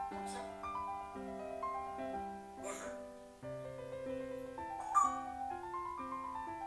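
Background piano music, note after note, with three short noisy sounds over it: one near the start, one near the middle and a louder, sharper one about five seconds in.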